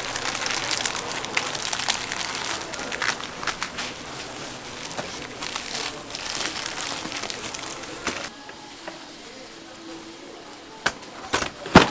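Busy market background with voices and small rustles and clicks as gimbap is rolled by hand; about eight seconds in the background drops abruptly. Near the end come three sharp metallic clacks, the last the loudest, from a multi-blade gimbap slicer being loaded and worked.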